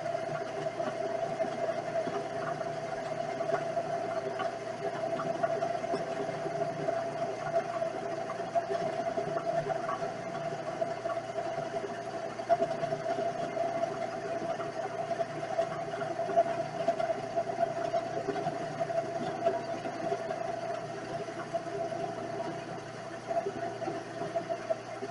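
Vevor 7x14 mini lathe running steadily, its motor and gears giving a constant whine with faint scattered ticks.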